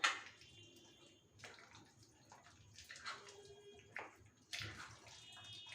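Raw chicken pieces being mixed in a wet marinade of egg, lemon juice and cornflour, with soft, irregular squelching and sloshing.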